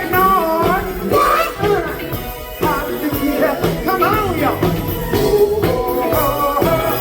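Live funk band playing with a steady beat, with singing voices over it.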